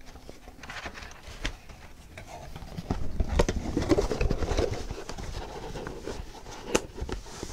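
Handling noise: scattered clicks and knocks, busiest and loudest a few seconds in.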